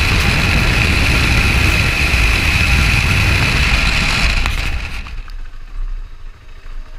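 BMW F650CS Scarver's single-cylinder engine running under a loud, steady rush. The sound drops away sharply about five seconds in.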